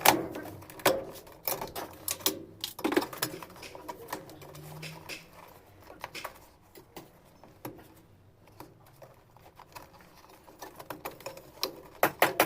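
Sharp clicks and knocks of tools and washing-machine parts being handled during disassembly, scattered and irregular, with a fast run of about five or six clicks a second near the end.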